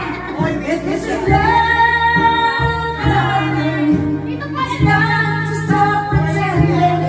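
Woman singing karaoke into a microphone over a backing track, holding long sung notes above a steady bass line.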